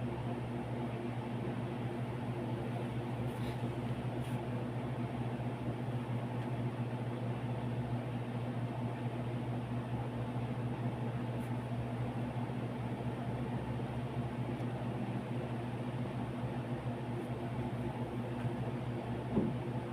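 A steady low machine hum, like a fan or small motor running, with a faint short sound near the end.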